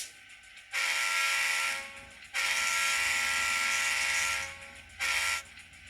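Recorded locomotive horn from the sound decoder of a ScaleTrains N scale GE C39-8 model, played through its small onboard speaker: three blasts, the first about a second long, the second about two seconds, the third short.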